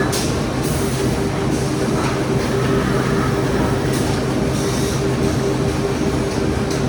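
Corrugated-box flexo printer slotter die cutter folder gluer running, a steady mechanical drone with a constant hum, broken by occasional short hisses.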